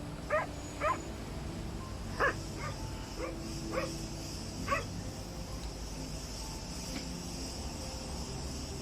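A dog barking: about seven short barks spread over the first five seconds, then only a steady background hiss.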